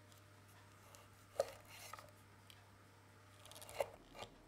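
Chef's knife cutting chorizo sausage on a wooden cutting board: three sharp knocks of the blade meeting the board, the loudest about a second and a half in and two close together near the end, with soft scraping between.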